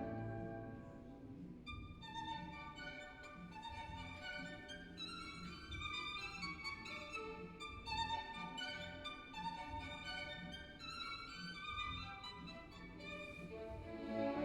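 Recorded classical music played back over a high-end hi-fi system, with a violin playing a run of quick short notes in a quiet passage.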